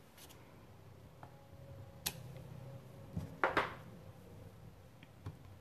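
Quiet clicks and taps of a rubber stamp being inked and pressed onto paper. The loudest is a double tap about three and a half seconds in.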